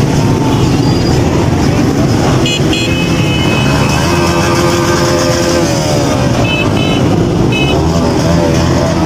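Motorcycle engines running in dense, slow traffic, with several short horn beeps and a longer horn blast in the middle.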